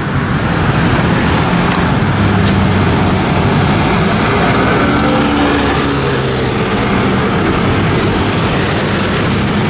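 A large group of small motor scooters riding past close by, many small engines running together over a steady din of street traffic.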